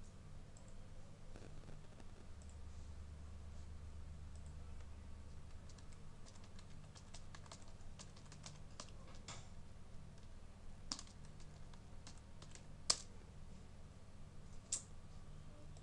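Typing on a computer keyboard: a quick run of faint keystrokes, then three louder single clicks spaced out near the end, over a low steady hum.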